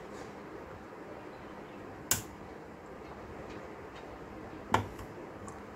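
Diagonal cutters snipping the excess legs off newly fitted replacement capacitors on a motherboard: two sharp snips about two and a half seconds apart.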